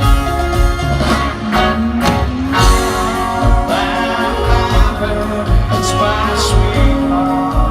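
Live rock band playing loudly: electric guitars holding sustained notes over bass and a steady drum beat.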